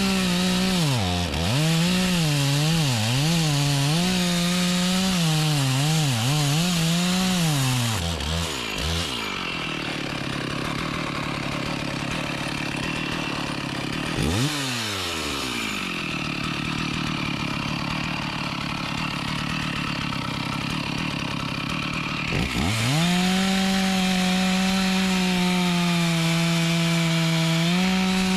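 Two-stroke chainsaw running: revved up and down for the first several seconds, then running lower and rougher while cutting into mahogany wood, with a brief dip about halfway. Near the end it climbs back to high, steady revs.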